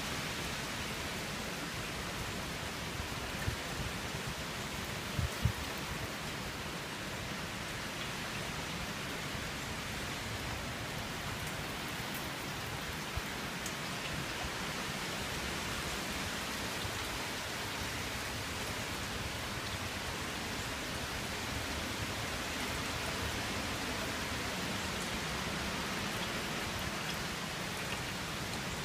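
Steady rain from Tropical Storm Irma falling on a shingle roof, lawn and trees, heard from under a porch roof. A few brief low thumps a few seconds in.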